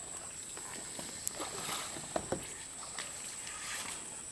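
Water sloshing and splashing with scattered small clicks and a few sharp knocks around the middle, like someone moving about in a shallow stream. A thin, steady high-pitched whine runs underneath.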